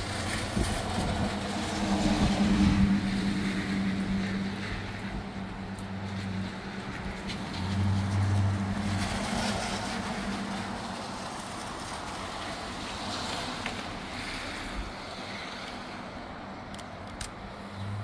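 Gusty wind rushing through trees and buffeting the microphone, swelling about two to three seconds in and again around eight to ten seconds. A low steady hum runs underneath.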